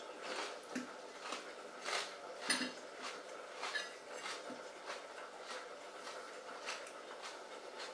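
Cutlery and fingers knocking against a ceramic bowl of celery sticks and tomato, a few light clinks with the loudest about two and a half seconds in, over faint regular ticks about every half second.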